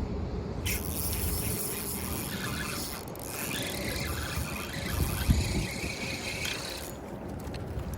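Fishing reel being cranked fast, a rapid mechanical whirring and ratcheting while a hooked bass is reeled in. It stops near the end, and a dull low thump comes about five seconds in.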